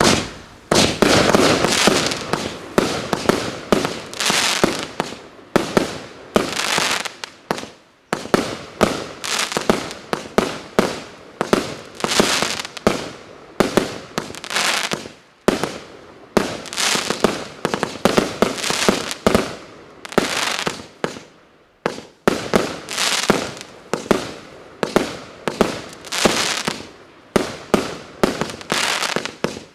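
Multi-shot consumer fireworks battery (PP2043) firing shot after shot: sharp bangs of launches and aerial bursts, roughly one to two a second, each trailing off into crackle.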